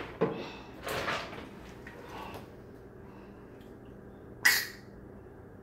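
A can of whipped cream being fetched and handled, with a few rustles and knocks, then one short, loud hiss about four and a half seconds in.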